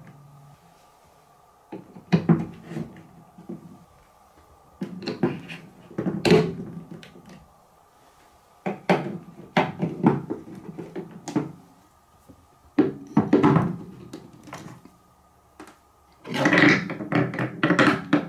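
TrixTrack marble-run pieces, plastic blocks, plastic wave slopes and wooden parts, being handled and clicked together: clusters of clacks and knocks about every three to four seconds as the track is fitted together.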